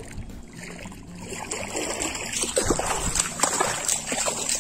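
Water splashing and sloshing, building about a second and a half in into a run of irregular splashes.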